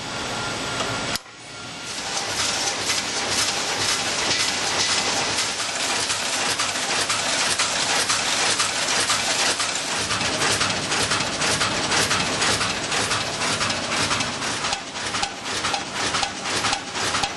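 Woodman P3c vertical form-fill-seal bagmaker running: a dense, steady mechanical clatter made of rapid ticks as its servo-driven end seal jaws and stripping cycle. There is a sudden break about a second in, and the separate ticks stand out more near the end.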